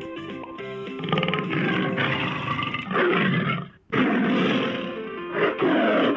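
Tiger roaring several times, long harsh roars over soft background music with plucked notes; the roars start about a second in and break off briefly before starting again.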